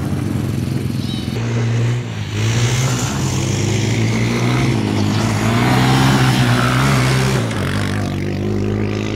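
Quad (ATV) engine running close by and revving, its pitch rising and falling several times as it accelerates and eases off.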